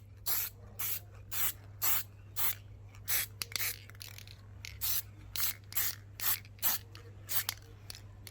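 Aerosol spray-paint can sprayed in short, quick bursts, about two a second, each a brief hiss.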